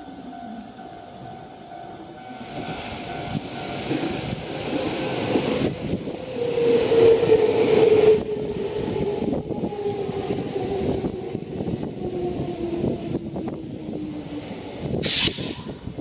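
Electric commuter train on the Nankai Koya Line running through the station: wheel and running noise builds to a peak about seven seconds in, with a motor tone that slowly falls in pitch. A short, sharp burst of hissing noise comes near the end.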